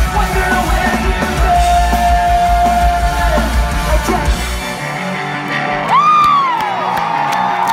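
Live pop-punk band playing loud, heard from inside the crowd through a phone microphone: electric guitars, bass, drums and singing, with one long held note. About five seconds in the bass and kick drum drop out, leaving guitar and a voice that slides up and back down, over a steady clicking beat of about four a second.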